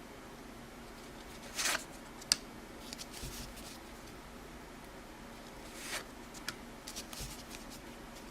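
Old cardboard hockey trading cards being slid and flicked one behind another while someone goes through a freshly opened pack: a few short swishes and a couple of sharp card clicks, with pauses between.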